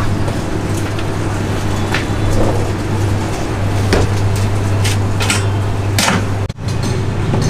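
Steady low hum of kitchen machinery, with scattered clicks and knocks as plastic food trays are taken out of a glass-door display fridge and the door is handled. The sound cuts out for an instant near the end.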